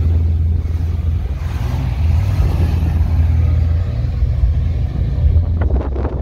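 Vintage hot rod coupe's engine running with a steady low exhaust note as the car pulls away and drives off.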